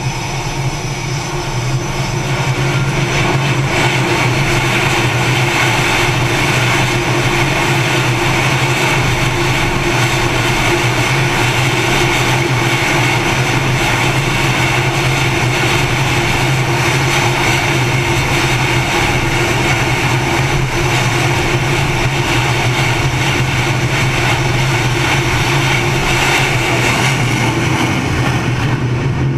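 Aircraft engines running on an aircraft carrier's flight deck ahead of catapult launches. It is a loud, steady roar and whine with several held tones, building over the first couple of seconds and then holding.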